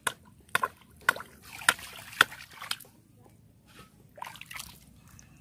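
Hands digging and splashing in a water-filled mud hole: a run of sharp wet splashes and squelches about half a second apart over the first three seconds, then softer sloshing. The hands are digging a fish out of its burrow in the mud.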